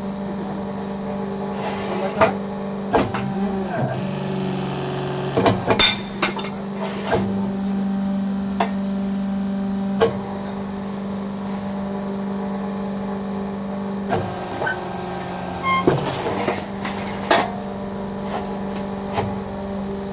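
Fly ash brick-making machine running: its electric motor gives a steady hum, and sharp metal clanks come every one to three seconds as the machine's handles and press are worked.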